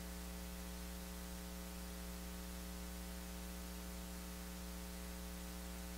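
Steady electrical mains hum: a low buzz with many evenly spaced overtones, over a faint hiss.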